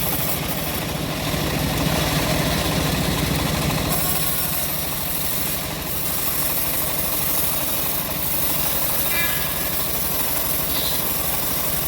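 Homemade engine-driven bandsaw sawmill running steadily under an even drone, with a high hiss over it throughout.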